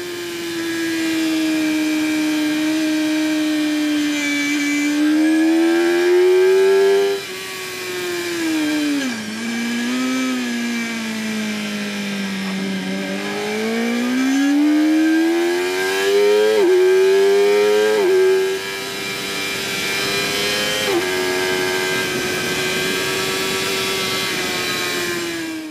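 2008 Yamaha R1 inline-four sportbike engine at high revs on track. Its pitch sinks as the bike slows for a corner about eight seconds in, climbs back up hard, and drops sharply with quick upshifts a few times later on.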